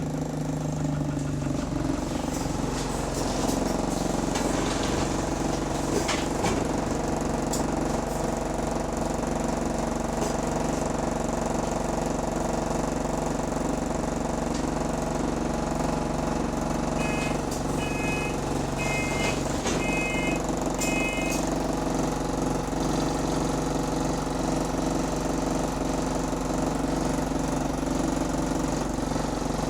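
Bus diesel engine running steadily, heard from inside the bus, with faint rattles. From about 17 seconds in, a run of short, high two-note beeps sounds for a few seconds: the door buzzer.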